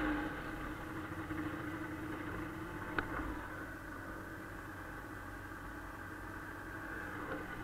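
A 1996 Arctic Cat Bearcat 340 snowmobile's two-stroke engine idling with a steady hum, easing down from a louder run at the start. A single click comes about three seconds in.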